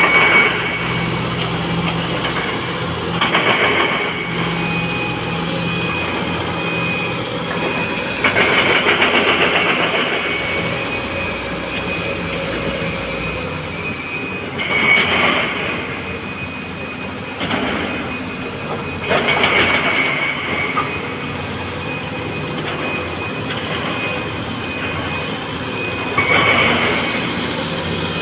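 Tata TL340 wheel loader's diesel engine running under load as the machine drives and pushes gravel with its bucket, rising in about six louder surges.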